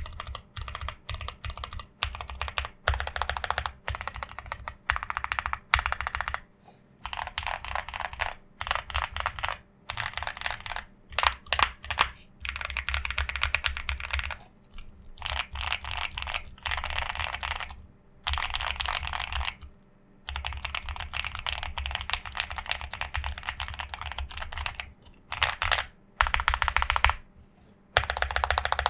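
Typing on a custom mechanical keyboard with pre-lubed Gateron Oil King linear switches in an anodized aluminium case: fast runs of keystrokes lasting a second or two, broken by short pauses.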